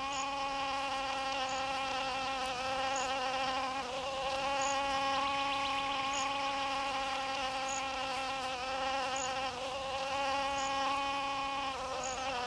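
Male thynnid wasp's wings buzzing in a steady, slightly wavering hum as it grips an orchid's female-mimicking lip and beats its wings, trying to fly off with it.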